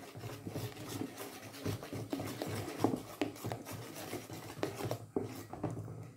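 Crêpe batter being stirred in a stainless-steel mixing bowl with a metal utensil: a wet swishing with irregular scrapes and clicks of metal against the bowl.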